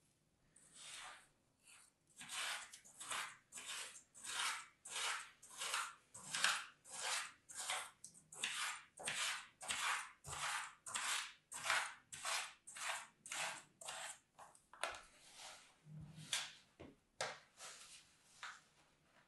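A thin tool scraping through kinetic sand in a tray in rhythmic strokes about twice a second, then a few sparser scrapes and crumbling of the sand near the end.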